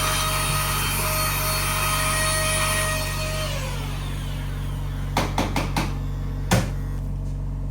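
Electric clippers running steadily with a motor whine, then switched off about three seconds in and winding down, as fur is clipped from around the wound before scrubbing. A few quick clicks and one sharper knock follow, over a constant low equipment hum.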